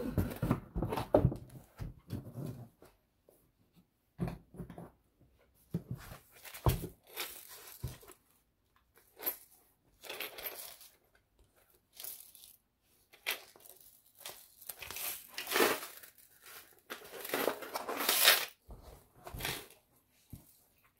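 Shrink-wrapped wooden model ship kit being handled: the clear plastic film crinkles and rustles in irregular bursts, loudest at the start and again near the end, with a few dull knocks as the cardboard-backed board is moved and set down.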